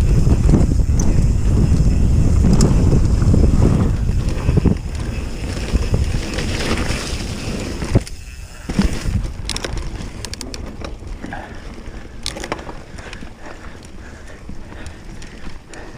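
Commencal enduro mountain bike descending a trail: wind buffeting the microphone and tyre rumble, loud for the first few seconds, then quieter riding with rattling from the bike and sharp knocks of the wheels over roots and rocks.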